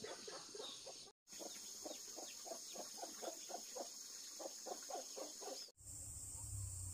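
Chicken clucking: a quick string of short calls, about three or four a second, with a brief dropout about a second in. Near the end the clucking cuts off, leaving a steady low hum and a high insect buzz.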